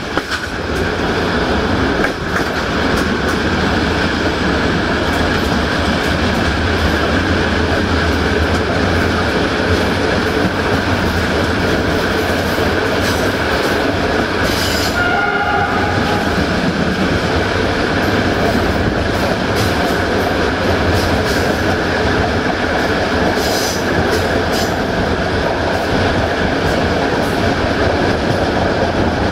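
Passenger train running along the line, heard from an open carriage window: a steady rumble of wheels on rail with the clatter of the track. A brief higher tone sounds a little past halfway.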